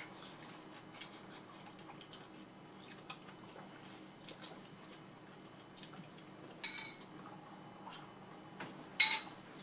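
Quiet sounds of eating at the table: faint clicks of metal cutlery on ceramic bowls and plates, and wet mouth sounds of eating soup. A short ringing clink comes about seven seconds in, and a louder sharp sound about nine seconds in.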